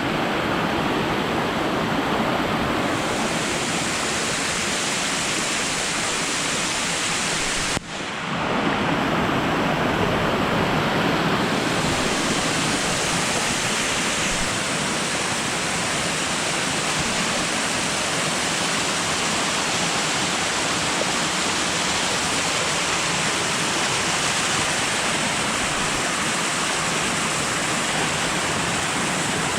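Waterfall rushing: a steady, loud roar of falling water, broken by a brief drop about eight seconds in before it carries on.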